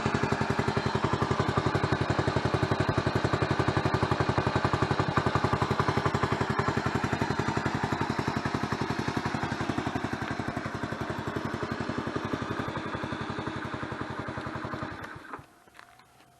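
Honda Super Cub 90's single-cylinder four-stroke engine idling through an aftermarket Outstanding monaka muffler with its silencer insert fitted, the exhaust pulses evenly spaced. The engine is switched off about fifteen seconds in and the sound dies away.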